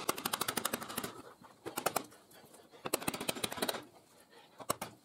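A freshly sharpened wood chisel pushed by hand into a block of hardwood, the fibres crackling as it cuts in quick runs of sharp clicks, three or four times.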